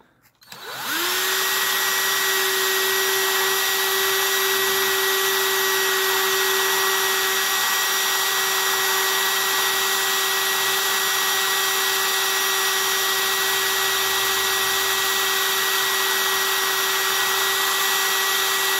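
Cordless drill spinning up about a second in and running steadily at high speed with a constant whine, a soldering iron tip in its chuck held against 320-grit sandpaper.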